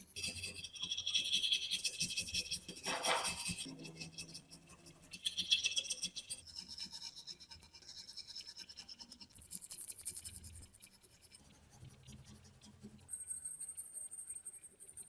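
Scratching on rusty metal in several short spells of strokes, as rust is scraped off.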